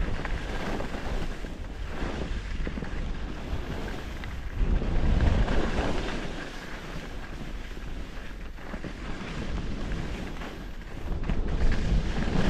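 Wind rushing over the microphone during a fast ski descent, with the hiss of skis sliding over snow, swelling louder about five seconds in and again near the end.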